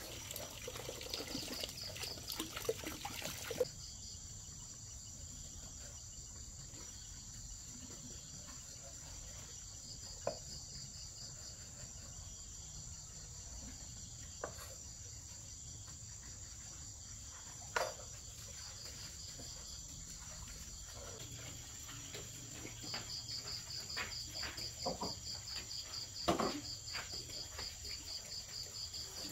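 Crickets chirping in the night: a steady high trill throughout, with a second, pulsing trill that comes and goes, loudest near the end. A louder rustling noise lies under it for the first few seconds and cuts off suddenly, and a few short knocks and scrapes sound now and then.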